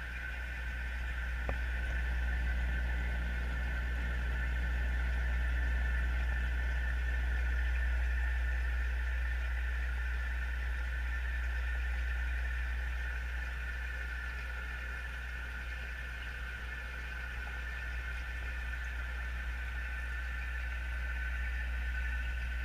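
Steady low hum with a fainter, steady higher whine above it: the running noise of the fish tank's water circulation equipment, heard through an underwater camera housing.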